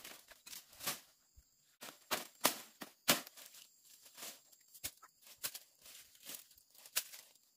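Machete chopping into spiny palm stems: irregular sharp strikes, about one or two a second, with dry fronds and leaves rustling and crackling between them.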